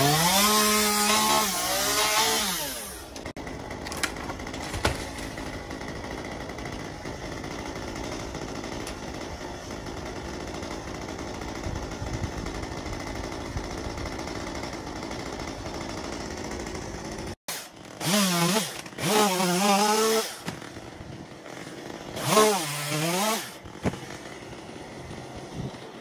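Chainsaw cutting dead tree branches. It revs up at the start and runs steadily for a long stretch. After a sudden break it revs in two short bursts, its pitch dipping and climbing back each time.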